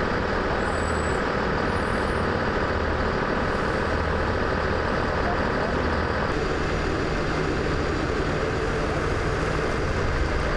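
Fire engines' diesel engines running steadily at idle.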